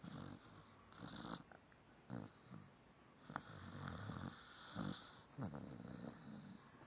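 Quiet snoring: a run of short, uneven snores with a faint high whistle through some of them.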